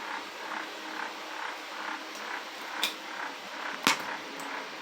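Salmon cooking in a frying pan with butter and wine: a faint steady sizzle with small regular pops, and two sharp clicks in the second half.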